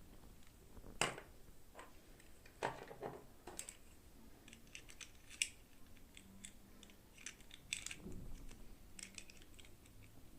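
Toy packaging being handled and opened: irregular small clicks, snaps and rustles, the sharpest about a second in and again past the middle.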